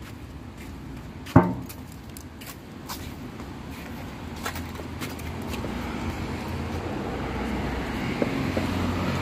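A passing road vehicle's low rumble, growing steadily louder over the second half. A single sharp knock sounds about a second and a half in, with a few fainter clicks scattered through.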